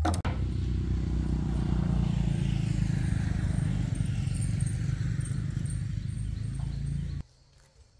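An engine running steadily with a fast, even pulse, stopping suddenly about seven seconds in.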